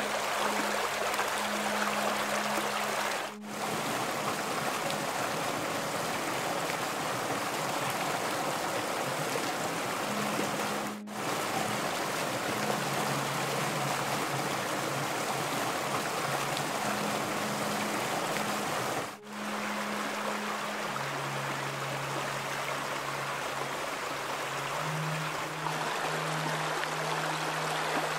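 Shallow rocky stream rushing and splashing over stones in a steady wash, with soft sustained music notes underneath. The water sound dips briefly three times.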